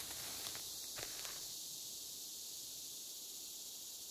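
Natural forest ambience: a steady high hiss like an insect chorus, with a few light clicks like soft steps in the first second and a half, after which only the thinner high hiss remains.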